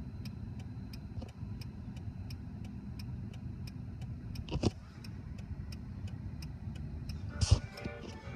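Car cabin at a standstill: a steady low engine and traffic rumble with a turn-signal relay ticking evenly, about three ticks a second. A knock comes partway through, and a louder thump comes near the end.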